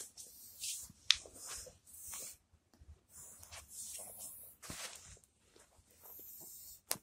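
A Shiba Inu snuffling and nosing at a towel on its bedding: soft, hissy snuffles and fabric rustling in uneven bursts. A few sharp clicks come through, the loudest about a second in.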